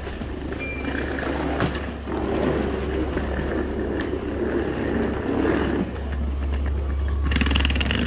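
Hard wheels of a trolley suitcase rolling over the floor, a steady rumble, with a louder rattle near the end.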